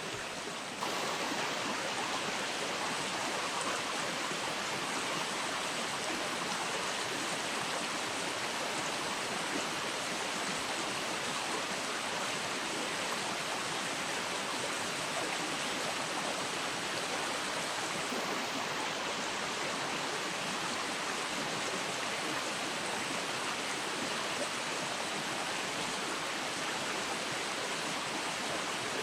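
Steady rushing of flowing river water, a little louder from about a second in.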